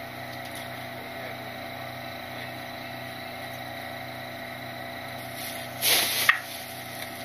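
Load Master Legacy rear-loader garbage truck idling with a steady hum. A brief loud noise about six seconds in.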